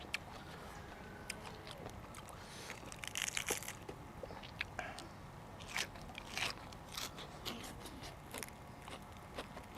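Close-up chewing with irregular crisp crunches, with a quick run of crunches about three seconds in: raw fresh vegetables, such as bitter gourd, being bitten and chewed.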